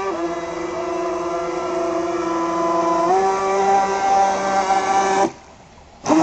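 Battery-powered electric drive motor of a remote-control fishing boat running with a steady whine. Its pitch steps up about three seconds in as the throttle changes, then it cuts off abruptly near the end.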